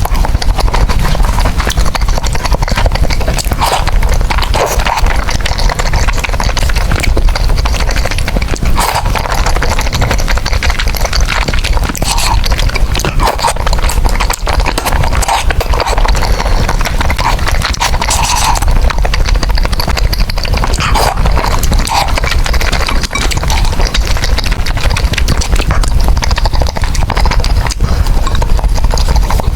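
Close-miked eating sounds: wet chewing and clicking mouth noises, with short slurps of noodles now and then.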